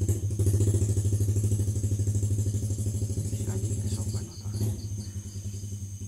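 Motorcycle engine running with a steady low drone and a rapid pulse; its level eases off a little about four seconds in.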